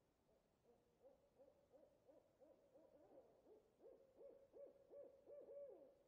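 An owl hooting: a quick run of short hoots, about three a second, growing louder toward the end.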